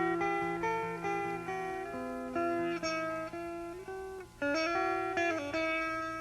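Background music: a solo guitar picking a melodic intro line, single notes and short runs, each note ringing out and fading.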